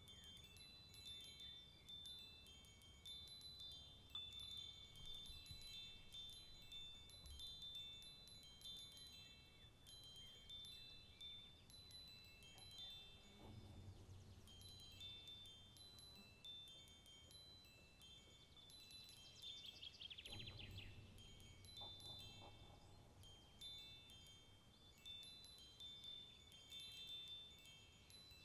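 Faint, high, tinkling chime notes sounding one after another at a few fixed pitches, with a soft low rumble twice along the way.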